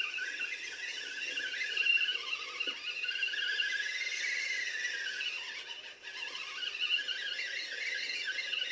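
Electric motor and drivetrain of a scale RC truck whining as it drives, the pitch rising and falling with the throttle.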